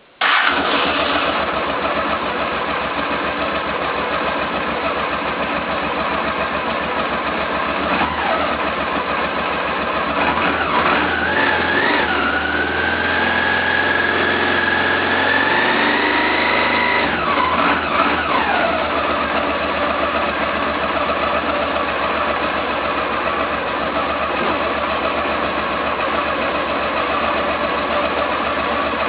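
Carbureted Honda Africa Twin V-twin motorcycle engine starting right at the start and settling into a steady idle. It is test-running after a valve-clearance adjustment and carburettor cleaning. Near the middle the revs are raised gradually and held for a few seconds, then drop back to idle.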